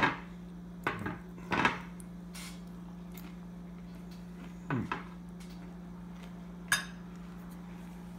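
Metal fork clinking and scraping against a ceramic plate while eating fries with gravy: a few separate clinks spread out, the sharpest and most ringing one near the end. A steady low hum runs underneath.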